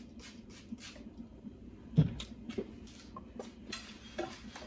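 A few short squirts from a trigger spray bottle, then one sharp knock about two seconds in as the bottle is set down on the granite countertop, followed by a cloth rubbing over a gold tray with small scattered clicks.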